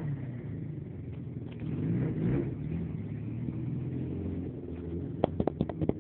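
Honda CBR motorcycle engine running near idle, blipped up briefly about two seconds in and settling back. Near the end a quick series of sharp clicks or knocks starts.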